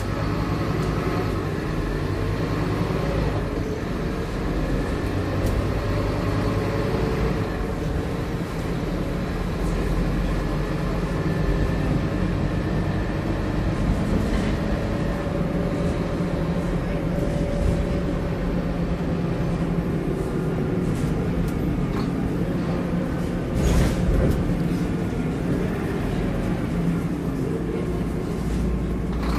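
Scania K230UB bus's diesel engine and ZF automatic gearbox heard from the rear seats inside the cabin while under way, the engine note shifting in pitch as it goes through the gears. Scattered rattles from the body, and a thump about 24 seconds in.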